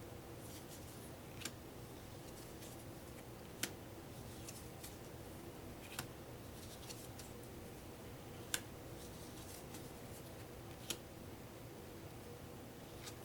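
Playing cards being handled and laid down one at a time, each set down with a sharp click about every two and a half seconds, with soft card rustling between.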